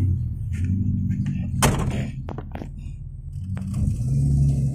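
Suzuki Jimny's engine running at low revs, heard from inside the cab, growing louder about four seconds in. A sharp knock comes about one and a half seconds in, followed by a few quieter knocks.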